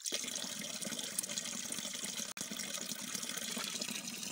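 A thin stream of water pouring and splashing onto rock as hands rinse leafy greens under it, a steady splashing rush with a momentary dropout a little past halfway.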